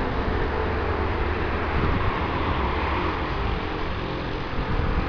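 Rear-mounted turbofan engines of a Bombardier CRJ900 airliner taxiing at low power: a steady rushing roar with a low rumble underneath, swelling slightly near the end.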